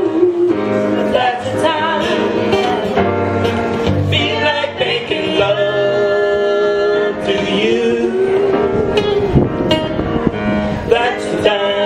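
Live song: a woman singing into a microphone over acoustic guitar accompaniment, holding one long note around the middle.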